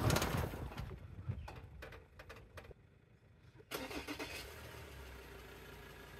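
A 4x4's engine is started about two-thirds of the way in: a short burst as it catches, then it settles into a steady idle. Before that, a loud rush of noise at the start dies away to near quiet with a few clicks.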